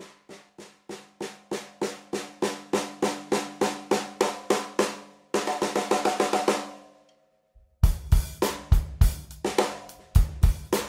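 12-inch Junior Ludwig kids snare drum, retuned with a replacement batter head, struck with sticks. Evenly spaced strokes speed up and grow louder for about five seconds, then a hit rings out and dies away. About eight seconds in, faster snare playing starts with low thumps underneath.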